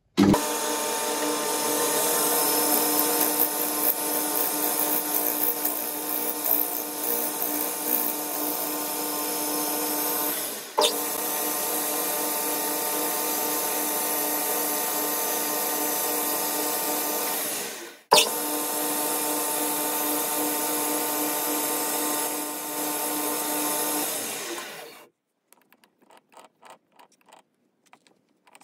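Boxford BUD lathe running steadily with a whine from its drive while it faces and drills brass stock. The sound breaks off sharply twice and picks up again, then stops about 25 seconds in. After that come faint, evenly spaced clicks as a tap is worked by hand into the drilled hole.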